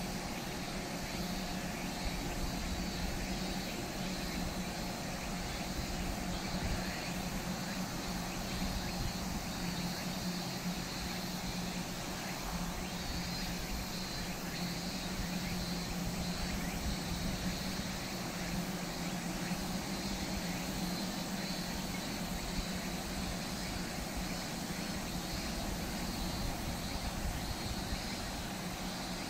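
Steady outdoor ambience with a constant low hum, uneven low rumble like wind on the microphone, and a steady high buzzing band.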